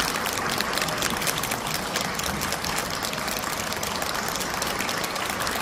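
Audience applauding: steady, dense clapping that cuts off suddenly near the end.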